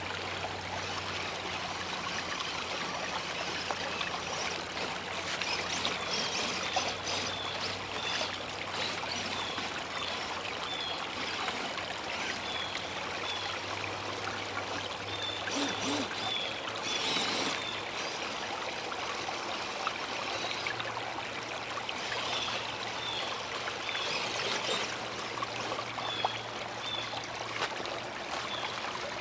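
Steady rush of running water, as from a stream, with runs of short, high chirps repeating every half second or so in places.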